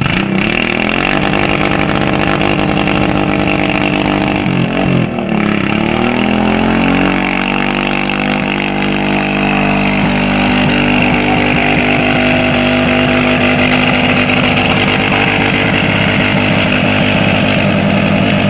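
Vehicle engine held at high revs during a burnout, with the spinning rear tyre squealing steadily. About four and a half seconds in the revs dip briefly, then climb back and hold.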